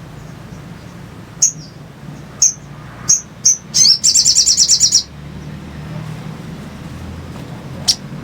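Sogok ontong (brown-throated sunbird) calling: sharp, high single chirps coming closer together, then a fast chattering trill of about a second, and one more chirp near the end. A steady low hum runs underneath.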